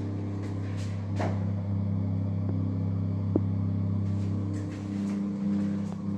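A steady low hum, with a single sharp click about three and a half seconds in.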